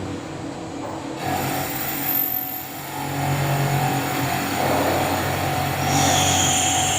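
Horizontal boring-milling CNC machine running, a steady mechanical hum with a high thin whine coming in about six seconds in.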